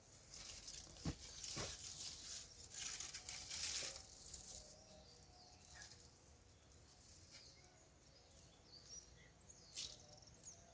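Rustling and tearing of dry potato plants being handled. The stems crackle for about four seconds, with two dull thumps early on, then only a few faint clicks.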